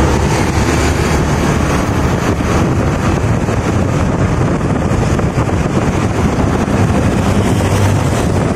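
Steady wind rush on the microphone of a moving motorcycle, with the motorbike's engine running underneath.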